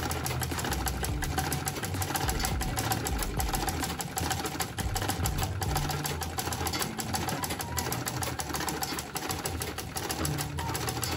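Manually powered Singer sewing machine, foot-treadle driven, stitching steadily: a fast, even run of mechanical ticks from the needle and shuttle as fabric is fed through, over a low rumble of the drive.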